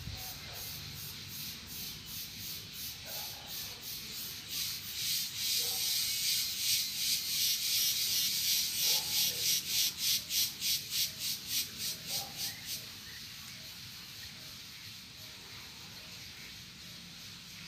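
An insect's high, pulsing buzz, about three pulses a second, swelling up a quarter of the way in, loudest in the middle, and dying away about two-thirds through.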